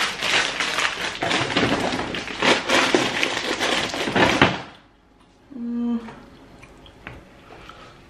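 Plastic shopping bags and packaging rustling and crinkling as groceries are rummaged through and lifted out. The rustling is dense and crackly and stops suddenly after about four and a half seconds, followed by a brief hummed "mm" from a voice.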